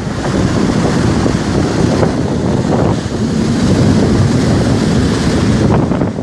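Sea waves breaking and surging, with strong wind buffeting the microphone in a steady, loud roar.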